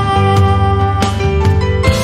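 Instrumental background music, a gentle piece of steadily changing notes.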